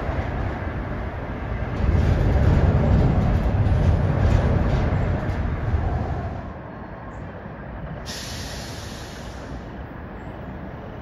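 A passing train rumbles, loudest for a few seconds near the start, then eases off. A short hiss follows about eight seconds in.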